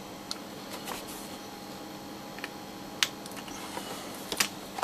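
A few small sharp plastic clicks and taps as fingers work at the snap lid of a small hard plastic parts box, the loudest about three seconds in, over a faint steady hum.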